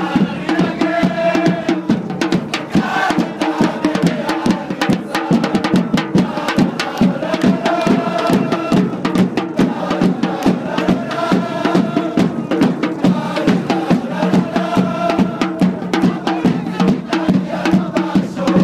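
Football supporters chanting in unison over a steady drumbeat, with rhythmic hand-clapping.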